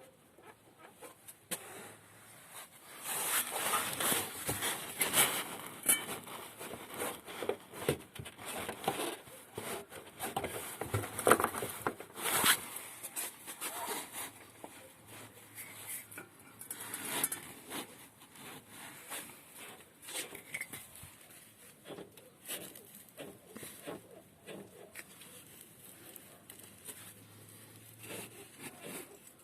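Irregular creaking and crackling clicks from the gearbox rods under a VW Tiguan's underbody guard as the drivetrain is worked by hand, densest in the first half. The owner says the squeak comes from these rods and not from the anti-roll-bar link bushings.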